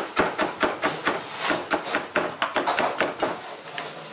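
Chef's knife rapidly chopping ginger on a plastic cutting board, a quick run of about five knocks a second.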